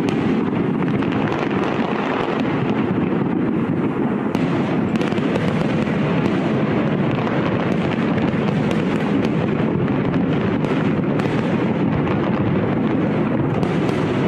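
Fireworks going off in a dense, unbroken barrage of overlapping bangs and crackles, steady in loudness throughout.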